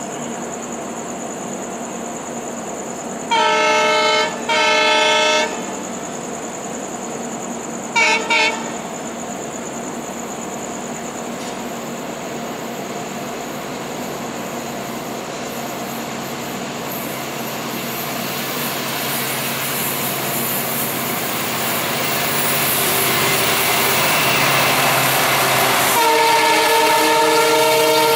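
Multi-tone locomotive horn: two blasts about three seconds in, then two short toots a few seconds later. An approaching WDG-4 diesel freight train then rumbles louder and louder and sounds a long horn blast near the end.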